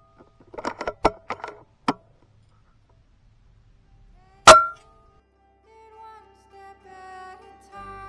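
Kalibrgun Cricket II .22 PCP air rifle with its moderator firing one shot about four and a half seconds in: a sharp crack with a short metallic ring. Before it, a quick run of clicks as the rifle's action is cycled; faint music fades in near the end.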